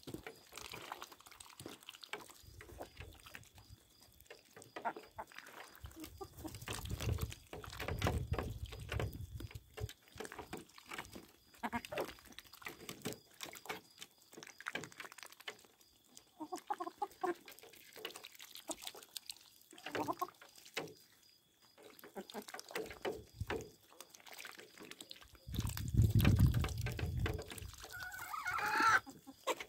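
Chickens pecking and drinking at a shallow metal water basin: many sharp taps of beaks on the metal and in the water, with a few soft clucks and a higher call near the end. Two dull low rumbles, about a quarter of the way in and near the end, are the loudest sounds.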